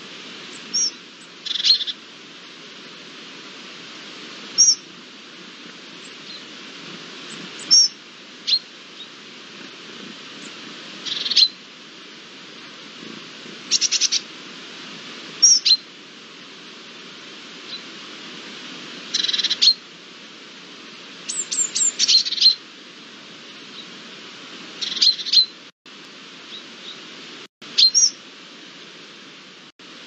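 Birds chirping: short, high, sharp calls every second or two, some in quick clusters, over a steady hiss.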